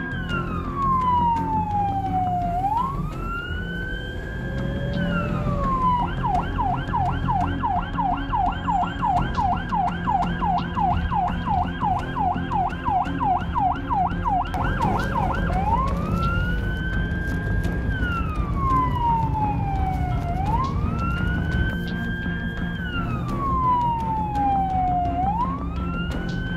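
Ambulance siren heard from inside the moving vehicle: a slow rising-and-falling wail that switches about six seconds in to a fast yelp of about three sweeps a second, then returns to the wail about ten seconds later. A steady low hum of the vehicle runs underneath.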